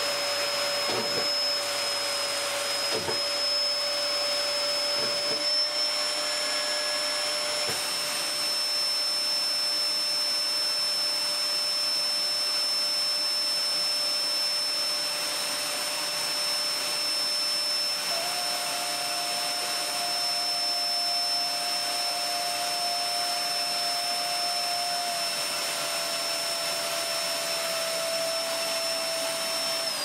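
Hoover bagless cyclonic vacuum cleaner running steadily with a high whine under heavy suction, its airflow blocked so the vacuum gauge sits in its red zone. The lower note of the motor steps up slightly about 18 seconds in and drops back again about 25 seconds in.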